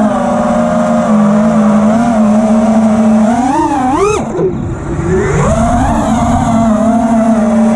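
Custom 5-inch FPV quadcopter's T-Motor F60 Pro IV 1750kv brushless motors spinning Ethix P3 props, heard from on board: a steady buzzing whine. About three and a half seconds in it swoops sharply up in pitch, then drops low and quieter for about a second before climbing back to a steady buzz, the sound of the throttle punched and then cut.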